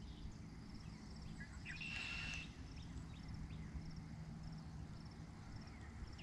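Faint outdoor ambience of birds calling: short falling chirps again and again, one brief higher whistle about two seconds in, and a rapid high ticking trill repeating throughout.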